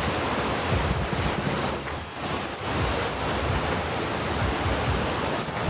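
Steady rushing and churning of a large cruise ship's wake at the stern, with wind buffeting the microphone in uneven low gusts.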